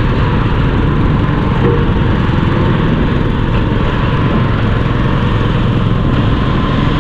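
A heavy dump truck's diesel engine running steadily under load as the hydraulic hoist tips the bed, with its load of sand sliding and pouring out the back.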